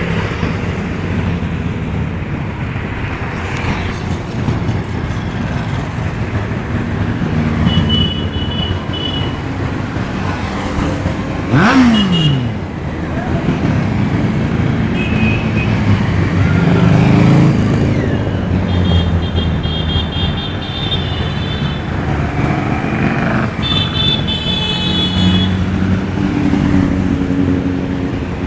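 Road traffic with engines running throughout. One vehicle passes close about twelve seconds in, its pitch falling as it goes by.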